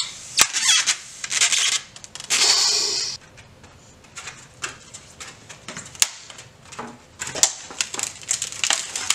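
Disposable foam and plastic plates and cups handled on a table: rubbing and scraping with many small clicks and taps. The loudest sound is a rough rasp of under a second, about two and a half seconds in.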